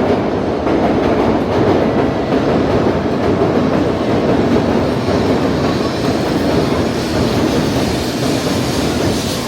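Shinkansen bullet train running: a steady, even rush of noise with no breaks, growing a little hissier over the last few seconds.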